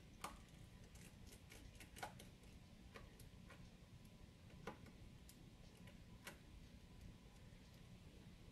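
Faint, scattered light clicks and ticks from hands handling an opened smartphone and its plastic frame, the clearest about two, four and a half and six seconds in.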